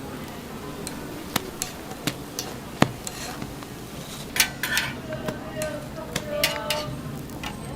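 Metal cooking utensils knocking and clinking on a hotteok griddle: sharp knocks in the first half, then several ringing clinks in the second half.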